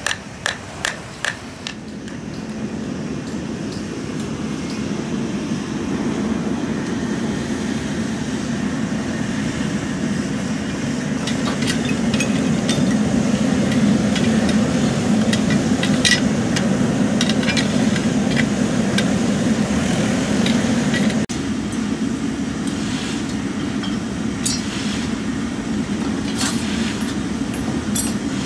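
Steady low rumble of a charcoal drum furnace burning under forced air, building up after the first couple of seconds. Scattered metallic clinks of scrap aluminium and tongs sound over it, with a quick run of sharp clinks at the start as charcoal and scrap are handled.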